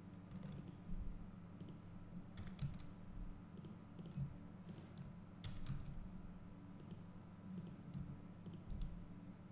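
Faint, irregular clicks of a computer mouse and keyboard as a desktop computer is operated, over a steady low hum.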